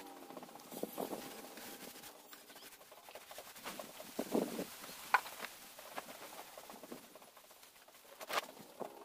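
A few scattered light knocks and clicks as a worker handles a paint tray and moves about the workbench, with the sharpest clicks a little past the middle and near the end.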